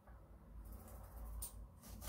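Quiet room tone with a low hum and a single light click about one and a half seconds in.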